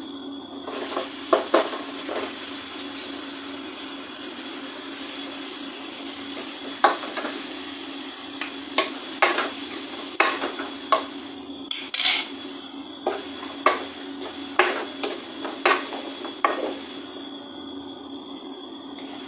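Chopped tomatoes and onions sizzling in a hot aluminium pot as a wooden spatula stirs them, clacking against the pot's sides and bottom. The knocks come irregularly, thickest through the middle stretch.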